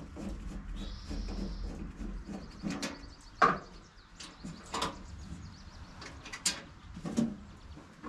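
Sheet-metal blade-wheel covers on a Woodland Mills HM130 MAX band sawmill being unlatched and swung open for a blade change: a handful of sharp metallic knocks and clicks, the loudest about three and a half seconds in.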